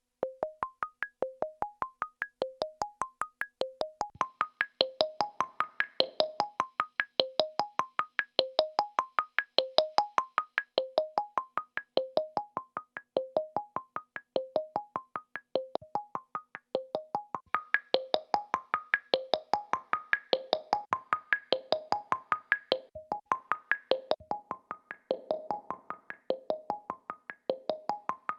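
Digital synthesizer playing a fast sequenced arpeggio of short plucked notes, about five a second, climbing in a short figure that repeats roughly once a second.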